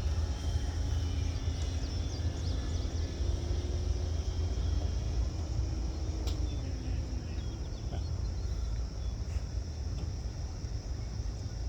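Faint propeller drone of an electric RC plane, an E-flite Timber X flying at low throttle, falling slightly in pitch as it passes, over a steady low rumble and continuous crickets.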